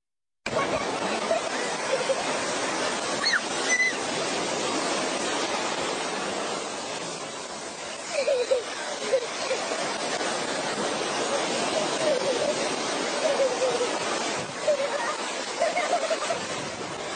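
Shallow surf washing and rushing steadily around a child and a large dog wading through it, with a young girl's voice breaking in with short cries several times.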